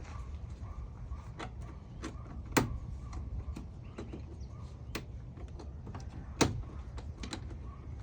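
Hand tools clicking and knocking while working a radiator hose clamp loose under the hood, with two louder knocks about two and a half and six and a half seconds in, over a low steady rumble.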